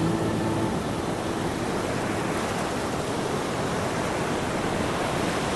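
Steady rush of sea surf and wind, an even unbroken hiss with no distinct wave breaks, as the last notes of music die away in the first second.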